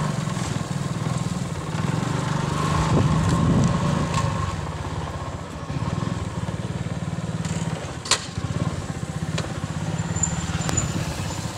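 Motorcycle engine running as it rides along, a steady low engine sound throughout, with one sharp click about eight seconds in.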